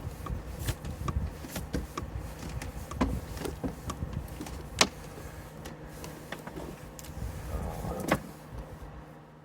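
Scattered clicks, taps and rustling of hands handling hot tub parts and the sensor cable, with one sharper click about five seconds in, over a faint steady hum.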